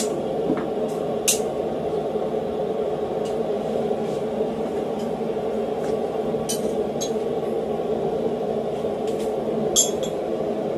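Hammer blows on a cutting chisel cutting into flat steel bar on an anvil: a few sharp metallic clinks, spaced irregularly and seconds apart, the loudest near the end, over a steady low hum.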